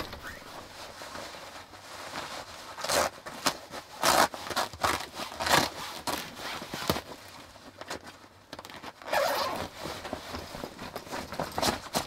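Rustling of clothing and shoes, with scraping, as a pair of sneakers is pulled on and adjusted, coming in irregular bursts.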